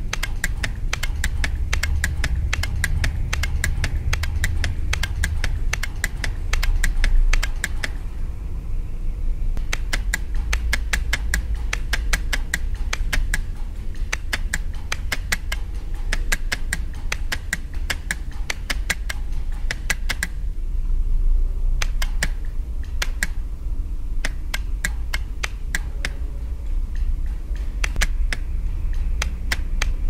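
Electromechanical relays clicking as they switch the lamps of the Blinkenlights light installation on and off. The clicks come in a rapid, irregular clatter, very dense for about the first eight seconds and sparser after that, over a steady low hum.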